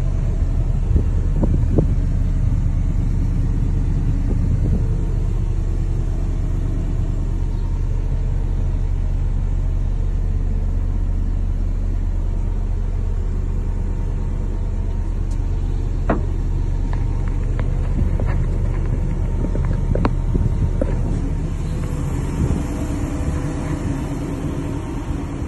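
Volvo EC210D excavator's D5E four-cylinder diesel engine idling steadily at about 1100 rpm, a deep, even drone heard from inside the cab. A few light knocks come about two-thirds of the way through, and near the end the drone is heard from outside the machine, with less of its deep low end.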